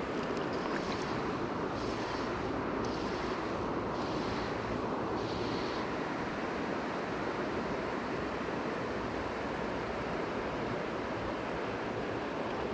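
Steady rush of a shallow river's current running over gravel.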